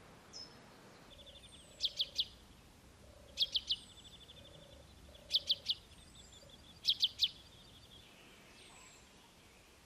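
Wild birds singing: a group of three sharp, high notes repeated four times about every one and a half seconds, with a fast dry trill running between groups and faint thin whistles sliding downward high above.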